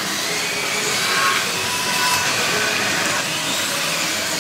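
Several slot cars racing, their small electric motors whining and rising and falling in pitch as they speed up and slow down around the track.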